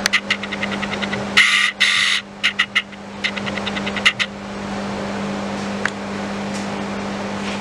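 Soft-serve ice cream machine running with a steady hum while strawberry soft serve is dispensed into a cone. In the first few seconds there is a fast run of clicks, about ten a second, broken by two short loud hissing spurts; after that only the hum is left.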